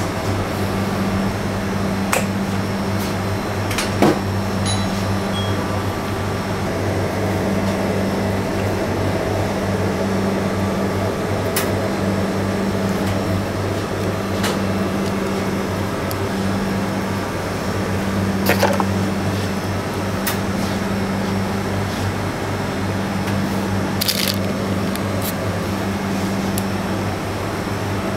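Steady hum of a machine, a low drone with a higher tone that cuts in and out every second or two. A few soft knocks come through as chocolate batons and dough are handled on a wooden bench.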